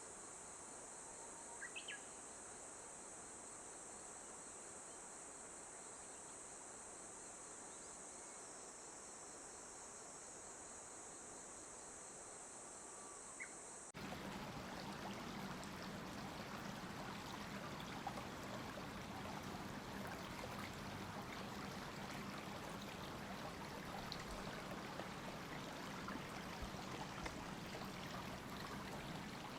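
Insects calling in a steady high tone, with a couple of brief faint chirps. About halfway through it cuts to the steady rush of a flowing stream.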